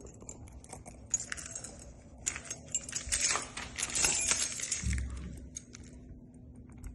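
Keys jangling and small metal clicks from handling keys and a Kwikset SmartKey lock cylinder during rekeying, busiest in the middle, with a dull thump about five seconds in.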